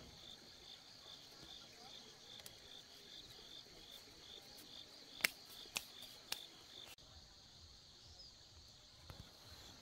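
Faint insects chirping outdoors, a high pulsing chirp repeating about two or three times a second over a steady high hum. The pulsing stops about seven seconds in, and three sharp clicks come about half a second apart shortly before that.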